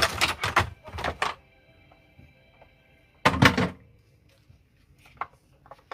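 Clattering knocks and clicks from handling a pressure rice cooker's lid and lock, with a steady electronic tone of several pitches held for about two seconds between the clatters.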